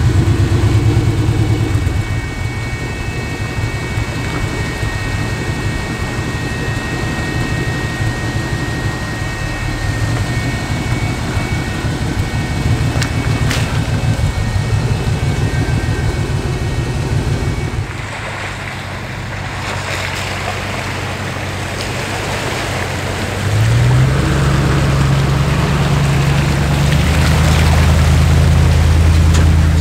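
1975 Toyota Land Cruiser's engine running steadily at low speed as it crawls over rocks. Then water splashes and rushes around the tyres of a lifted Dodge Ram 1500 pickup fording a muddy creek, and its engine note rises and holds under load about six seconds after the splashing starts.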